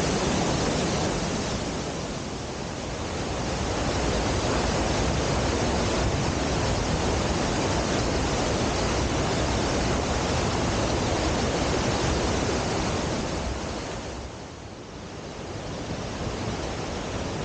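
Waterfall in spate: a steady, loud rush of heavy falling water, dipping briefly twice.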